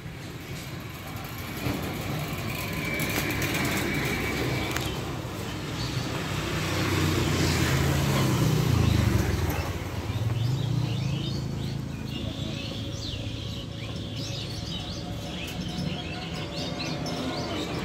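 A motor vehicle passes by, its engine swelling to a peak about eight to nine seconds in and then fading, with birds chirping.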